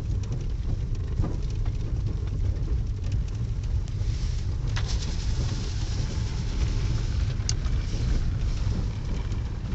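Car driving on an unpaved gravel road, heard from inside the cabin: a steady low rumble of engine and tyres, with small crackles of gravel under the wheels and a brief sharp click about seven and a half seconds in.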